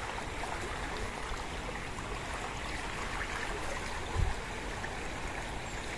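River water flowing steadily, with a single low thump about four seconds in.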